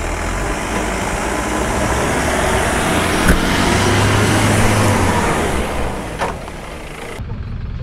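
Off-road vehicle engines working under load during a tow-strap recovery of a jeep stuck in wet river sand. The sound swells for several seconds and then eases off, with a couple of short knocks.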